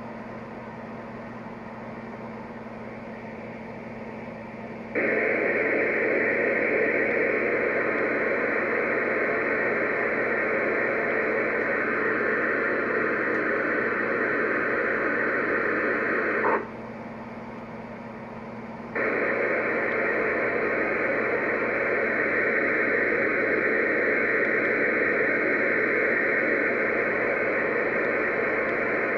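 QSI QS-3000 sound system of an O-scale model steam locomotive playing a steady steam hiss through its small speaker during the engine's shutdown sequence. The hiss switches on abruptly about five seconds in, cuts off with a click past the halfway point and comes back a couple of seconds later, over a low steady hum.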